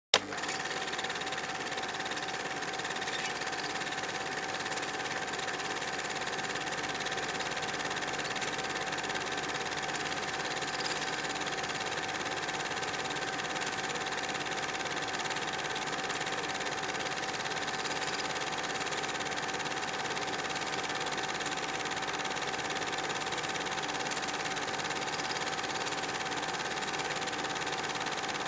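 Film projector running: a steady mechanical whir with a steady whine, unchanging throughout, after a brief click at the start.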